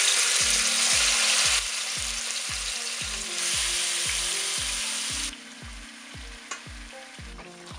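Marinated chicken pieces sizzling as they go into hot oil in a pot. The sizzle is loud, dips about a second and a half in, swells again, then falls away sharply a little after five seconds.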